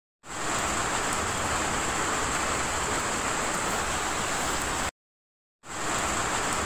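Heavy rain pouring down, a steady dense hiss. It stops briefly about five seconds in and then starts again.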